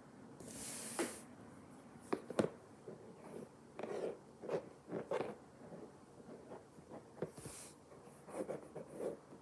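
A Godzilla toy figure being handled, with two brief rustling swishes. A run of soft knocks comes as the figure is set down and tapped along a tabletop, with a couple of sharper clicks about two seconds in.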